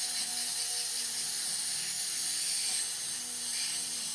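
Butane lighter fuel being refilled into a kitchen blowtorch: a steady hiss of gas.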